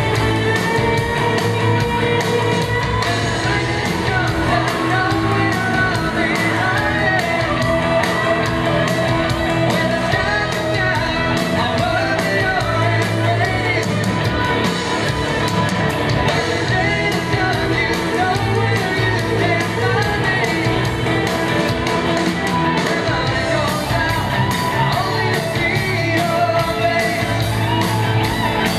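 Live rock band playing, with electric guitars and drums and a male voice singing over them.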